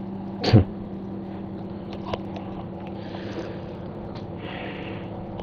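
Steady electrical hum and hiss from a home recording microphone, with a short voice sound about half a second in and faint breaths later on.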